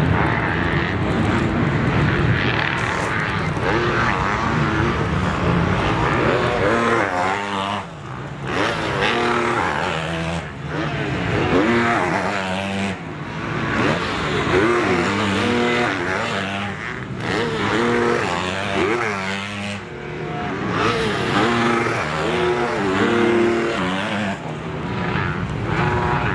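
Several motocross bikes' engines revving hard on a dirt track, overlapping, their pitch repeatedly climbing and dropping as the riders accelerate, shift and back off.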